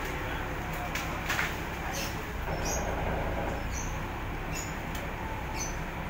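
Bulldozer's diesel engine running with a steady low rumble, with a couple of sharp knocks about a second in and short high squeaks repeating roughly once a second.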